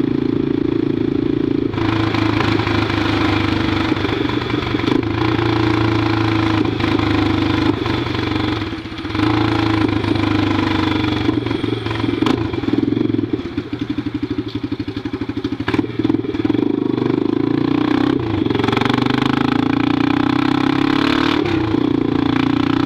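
Honda NX Falcon's single-cylinder four-stroke engine running through an open exhaust pipe with no muffler while riding. The engine note holds steady, drops away briefly about nine seconds in, and goes pulsing and uneven for a few seconds in the middle before picking back up.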